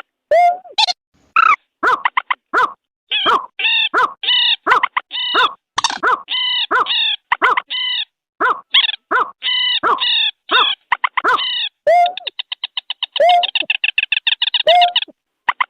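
Bird-lure recording of rail and snipe calls: short, harsh call notes with several stacked tones repeat rapidly, with dead silence in the gaps between them. From about twelve seconds in, a fast chattering trill of roughly ten notes a second takes over for about three seconds.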